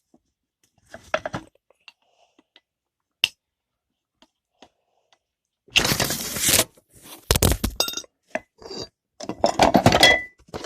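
A metal bottle opener made from two bolts clicking and scraping against a glass beer bottle: light clicks, then a loud rushing burst about six seconds in, a hard knock and a run of glassy clinks and clatter near the end. The attempt to open the bottle fails.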